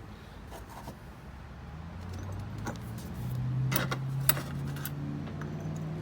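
A crucible being set into a small melting furnace: a few sharp clinks and knocks, the two loudest close together about four seconds in. Underneath, a low hum swells and rises slightly in pitch.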